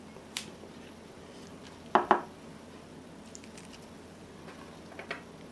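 Quiet hand work with food and dishes: a few light clicks and knocks of a plate and dishes on a wooden table, the loudest a close pair of knocks about two seconds in, as filled corn tortillas are folded over on the plate.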